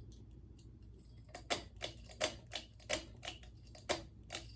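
Ceiling fan pull-chain switch being pulled: about ten sharp clicks, roughly three a second, starting about a second in, over a steady low hum.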